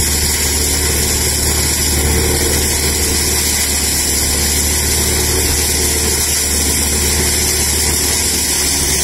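Straw suction blower driven by an electric motor, running steadily as it sucks chopped straw (bhusa) up a wide corrugated hose: a loud, constant rush of air and straw over a deep hum.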